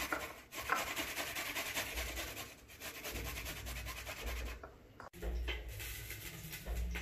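Garlic cloves being grated on the finer side of a stainless steel box grater: quick repeated rasping strokes of the clove across the metal teeth, breaking off about five seconds in.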